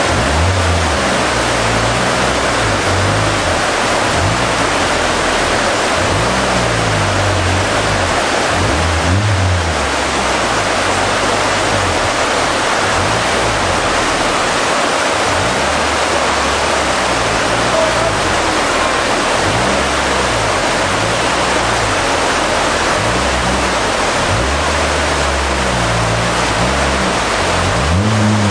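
Loud rushing of a fast river in white water, with an off-road 4x4's engine revving up and down underneath as it pushes through the current.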